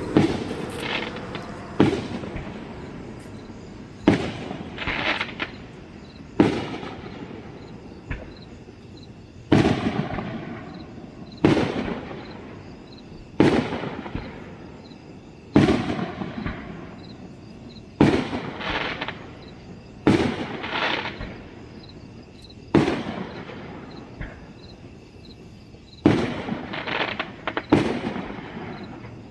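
Fireworks display bursting in the distance, a sharp boom about every two seconds, each followed by a long rolling echo, with crackling after some of the bursts.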